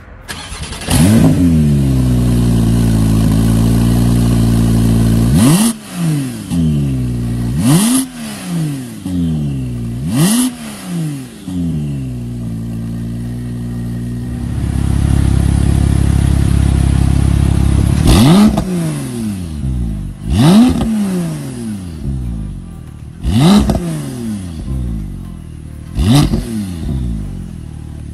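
Porsche 991.2 Turbo S twin-turbo flat-six starting up about a second in through an Fi valvetronic exhaust with its valves closed, flaring and settling to a steady idle. It then takes a series of quick throttle blips, each a sharp rise in pitch falling back to idle, with a steady idle stretch in the middle and more blips in the second half.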